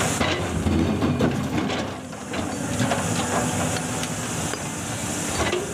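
Sumitomo hydraulic excavator's diesel engine running steadily under heavy load, with a hiss over it, as the machine strains to move a huge rock. The load is near the limit of its power.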